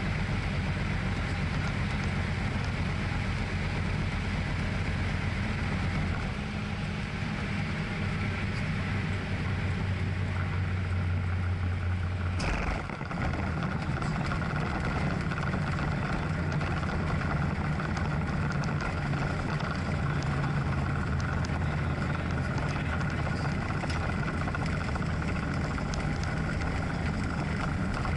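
Tecnam P2002 Sierra's Rotax four-cylinder engine and propeller droning steadily, heard inside the cockpit. The engine note shifts about six seconds in and changes abruptly about twelve seconds in.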